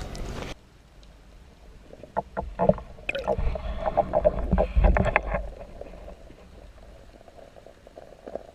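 Open-air river noise cuts off about half a second in as the phone goes under the river surface. After that, sloshing and knocks come through muffled by the water, busiest between about two and five and a half seconds in.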